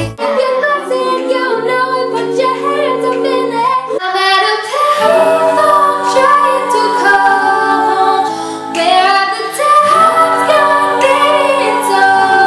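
A group of young female voices singing a song together in close harmony, with an acoustic guitar strummed underneath.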